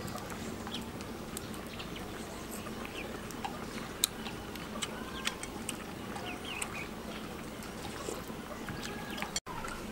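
A metal spoon clicking against a plate now and then while someone eats, with one sharp clink about four seconds in, over a steady outdoor background with faint chirps.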